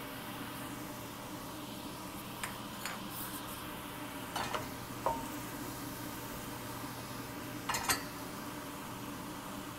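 Diced chicken and crushed garlic frying in a stainless steel pan with a steady sizzle, while a utensil clinks against the pan a few times, loudest about halfway through and again near the end.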